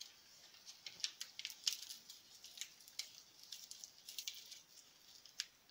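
Faint rustling and crackling of a sheet of paper being creased and folded by hand into a small packet, in scattered light crackles.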